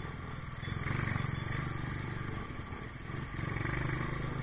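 Vehicle engines running in slow traffic: a low, steady rumble that grows louder about a second in and again a little past the three-second mark.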